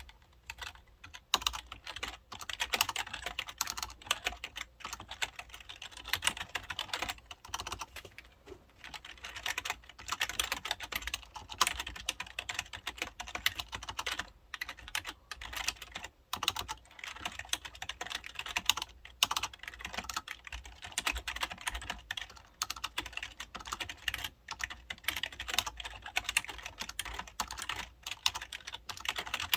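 Typing on an IBM KB-9930 membrane keyboard: quick runs of soft key clicks with short pauses between bursts.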